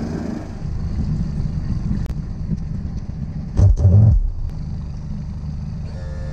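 Outboard motor of a 2018 Mercury 60 hp running at low speed, a steady low rumble, with a loud low buffeting thump about three and a half seconds in.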